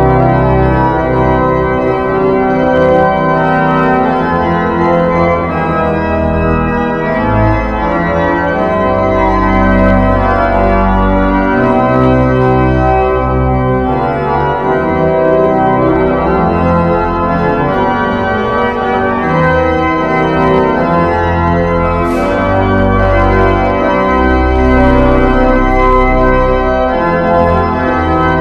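Church organ playing a closing voluntary: sustained chords over a bass line that moves every second or two.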